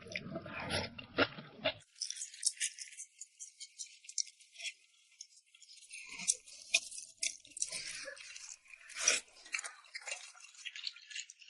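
Close-miked eating sounds of a person chewing rice noodles in red chili oil: many small wet clicks and smacks, with a louder one about nine seconds in.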